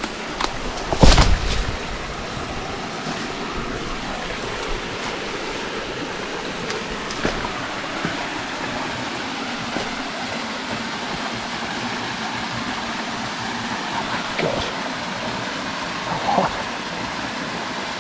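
Stream water running steadily, with a loud thump about a second in and a few fainter knocks later on.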